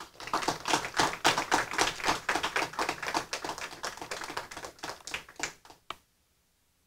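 A small audience applauding, dense overlapping hand claps that cut off suddenly about six seconds in.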